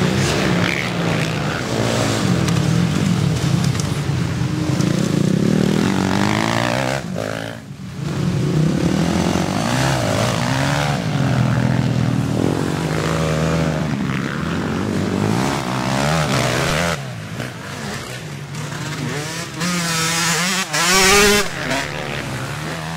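Several vintage twinshock motocross bikes racing past, their engines revving up and down through the gears and corners. A brief drop about a third of the way in, and the loudest pass near the end as a bike goes close by at full revs.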